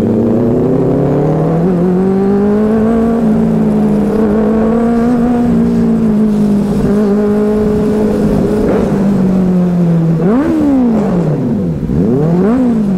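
Benelli 600i inline-four motorcycle engine running under way. Its pitch climbs gently and then holds steady while cruising. Near the end come two quick throttle blips, the pitch jumping up and dropping back each time.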